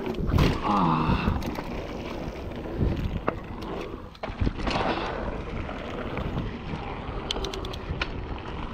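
Mountain bike rolling fast down a dry dirt and gravel trail: continuous tyre and wind noise with scattered knocks and rattles from the bike over bumps. A brief pitched sound stands out about a second in.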